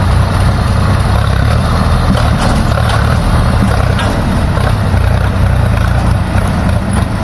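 Diesel engine of heavy earth-moving machinery running steadily, a loud, even low rumble.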